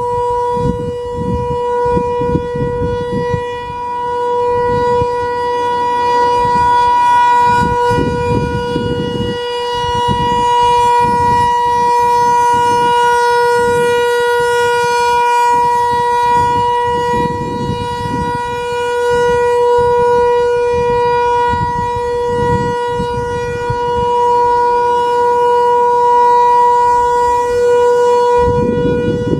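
ASC T-128 outdoor warning siren sounding the Alert signal: one steady, unbroken tone that swells and fades gently in loudness as the siren rotates. Gusty wind buffets the microphone underneath.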